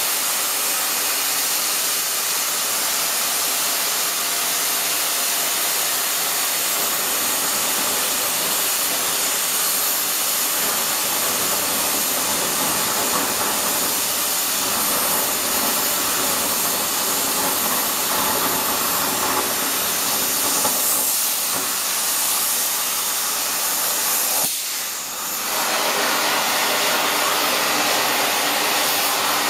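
Oxy-methane flame-cutting torch of a Zinser CNC 2030 gantry cutter burning through 35 mm steel plate: a loud, steady hiss of the gas jet. The hiss briefly drops away near the end and then comes back.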